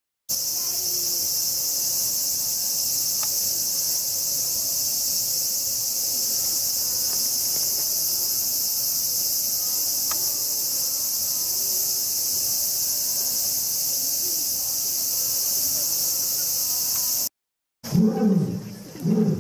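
Steady, high-pitched chorus of insects that cuts off suddenly near the end. After the cut an animal starts calling in a quick series of loud, low pulses.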